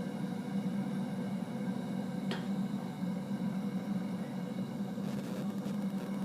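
Steady drone of a lit propane forge, with a single sharp metallic tick about two seconds in.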